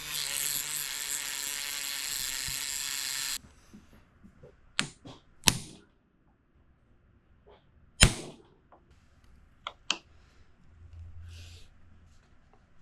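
A steady mechanical whirring runs for about three and a half seconds and cuts off abruptly, followed by several sharp clicks and knocks of tools on metal.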